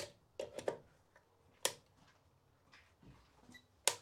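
A handful of sharp plastic clicks and knocks from a test-lead plug being pushed into and handled at a wall socket during electrical testing, the loudest near the end.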